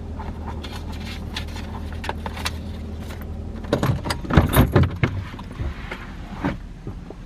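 Car engine idling with a low hum that stops a little over halfway through, followed by a jangle of keys and a run of clicks and clunks as someone moves about the cabin to get out of the car.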